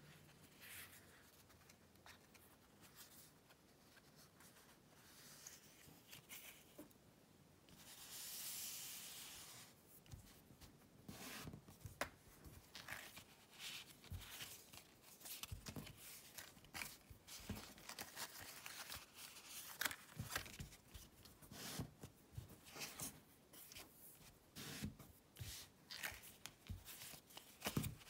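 Paper pop-up card being handled by hand: a longer paper rustle about eight seconds in, then a run of faint taps, creases and rustles as the card is folded shut and pressed flat on the table.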